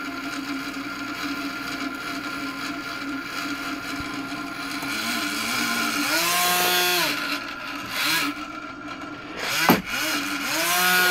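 Small electric motor and propeller on a PID-controlled pendulum rod running with a steady hum, then twice surging up in pitch and settling back down as the controller pushes back against the rod being shoved by hand. The controller is running with high derivative gain and derivative band limiting switched off. A single sharp knock comes just before the second surge peaks.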